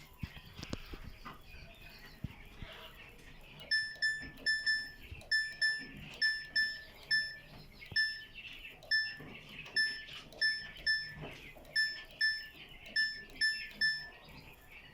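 Samsung washing machine control panel beeping over and over as the programme selector is stepped through: short, identical high beeps at about two a second, starting about four seconds in. A few soft knocks come before the beeps.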